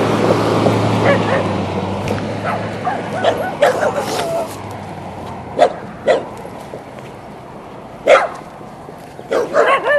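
Dogs barking and yipping, with a few sharp separate barks in the second half; a low steady hum stops about halfway through.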